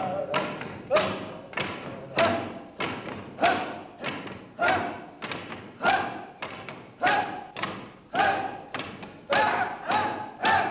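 Wooden staves pounded on a stage floor in a steady rhythm, a loud strike about every 1.2 seconds with lighter strikes between.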